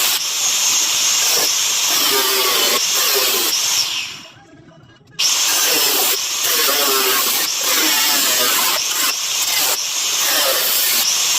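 Plasma cutter hissing steadily as it cuts the sheet steel of a car door, stopping for about a second around four seconds in and starting again abruptly.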